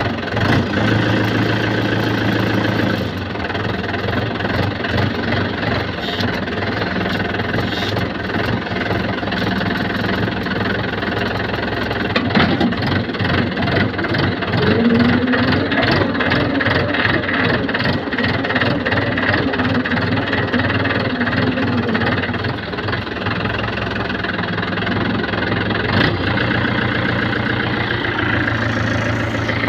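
Farm tractor's diesel engine running, heard from the driver's seat. It runs steadily at first, turns to faster, denser pulsing after a few seconds and carries a slowly rising tone around the middle, then settles back to a steady run near the end.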